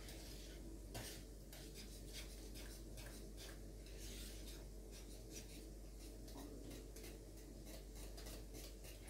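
Hand whisk stirring a thick cream mush in a glass bowl: light scraping and tapping strokes against the bowl, about three a second.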